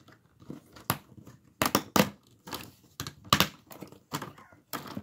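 Plastic screen bezel of an HP Pavilion laptop being pried off by hand: a run of irregular sharp snaps and clicks as its plastic retaining tabs pop loose.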